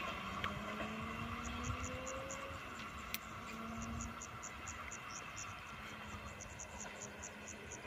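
Insects chirping in a steady series of short high chirps, about four a second, with a short pause about a second in, over a faint background rumble.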